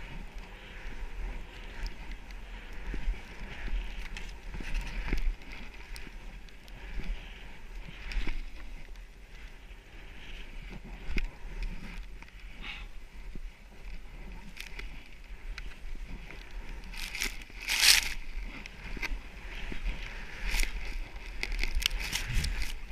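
Snow hissing under a rider sliding downhill through deep powder, swelling and easing with each turn, over a steady low wind rumble on the microphone. A loud, brief rush of snow comes about 18 seconds in.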